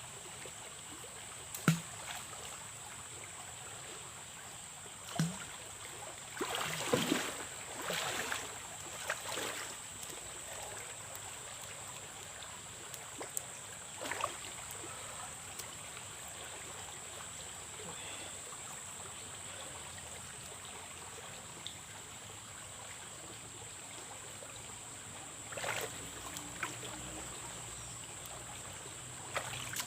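River water flowing, a steady hiss, with a few short knocks and louder bursts of splashing or handling noise, the longest cluster about six to nine seconds in.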